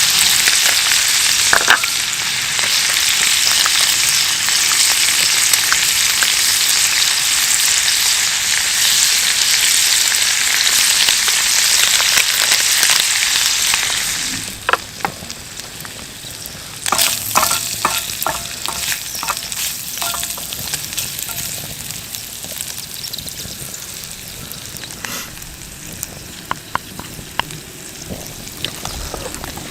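Food frying in a hot pan with a loud, steady sizzle. About halfway through the sizzle drops away suddenly, leaving scattered light clicks and knocks.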